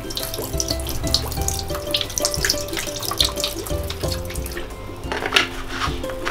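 Bleach poured from a bottle in a thin stream, splashing into a basin of water with dishcloths soaking in it, in two spells. Background music with a gentle melody plays throughout.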